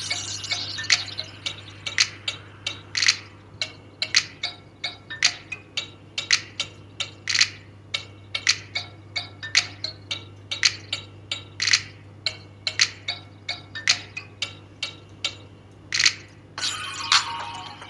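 A quick, uneven run of sharp clicks and ticks, about two or three a second and varying in loudness, over a faint steady low hum.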